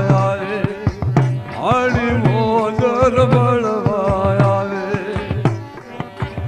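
Gujarati devotional folk music: a melody whose pitch wavers and glides, over a steady hand-drum beat with sharp slaps between the low strokes.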